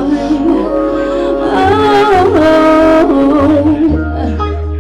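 A woman singing over music, holding and sliding between notes above a steady bass line.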